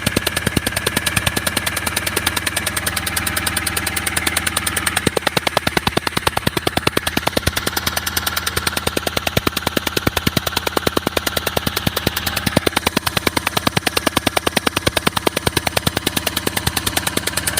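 Engine idling with a rapid, even ticking or chuffing at several beats a second, the sound of compression leaking past a bad injector seal.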